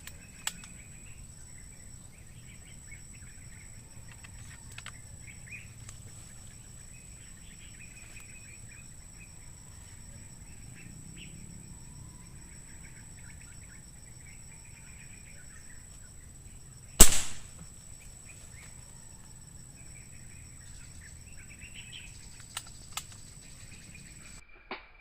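Small birds chirping in the trees over a steady high-pitched whine, broken about two-thirds of the way through by a single sharp air rifle shot. A few faint clicks near the start and near the end.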